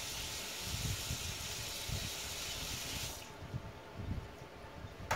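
Water tap running as a paint brush is rinsed under it, then shut off abruptly about three seconds in.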